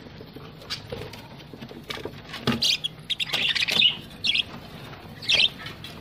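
Budgerigars chirping and chattering in the cage: a handful of short, high calls about two and a half seconds in, around the middle and near the end.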